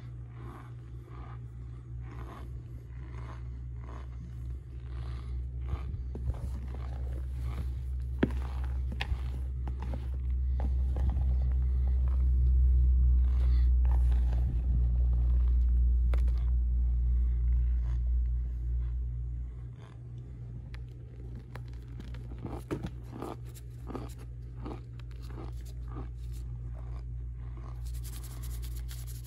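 Packed cornstarch being crunched and broken up, with many short, crisp crackles. Under them runs a steady low rumble that grows loudest for several seconds in the middle.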